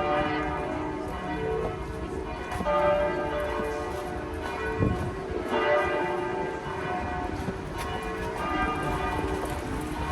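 Church bells of Saint-Germain-des-Prés pealing: several bells of different pitches struck in turn, their tones ringing on and overlapping.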